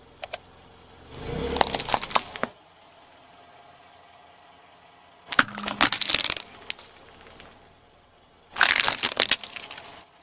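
A car tyre crushing small brittle objects on asphalt, heard as three bursts of crackling and crunching: about a second in, around five seconds in, and near the end. The later bursts are shiny red ornament balls cracking and breaking into shards under the tyre.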